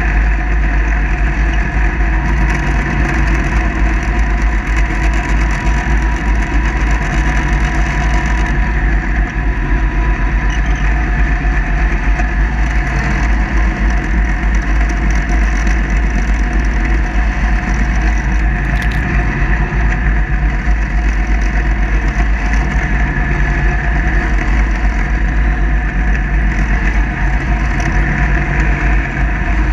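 Kubota 54-inch zero-turn mower running steadily while mowing, its engine and cutting deck giving a constant drone with a heavy low rumble, heard up close from the machine itself.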